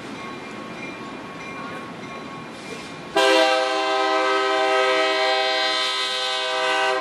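Freight train rolling by, then about three seconds in a locomotive air horn starts abruptly and sounds one long, loud, steady chord that is still going at the end.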